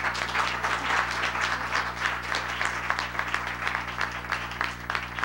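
A small audience applauding: many hands clapping in a dense, steady patter.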